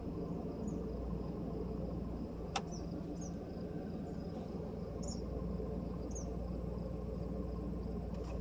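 1997 Ford Expedition's 5.4 L Triton V8 idling steadily, with crickets chirping and a single sharp click about two and a half seconds in.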